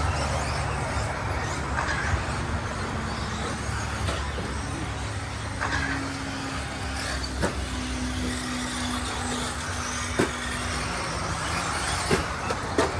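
Electric RC short-course trucks running on a dirt track: a steady motor and tyre noise with faint held whines, and a few sharp knocks in the second half.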